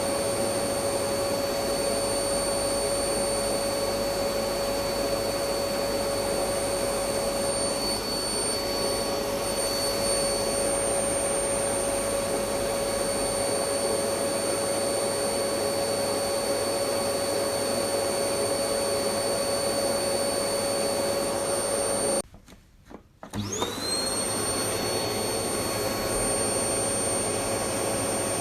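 Electric vacuum cleaner motor running with a steady whine and rush of air. About three-quarters of the way through it cuts out for about a second, then comes back with a quickly rising whine as the motor spins up to speed.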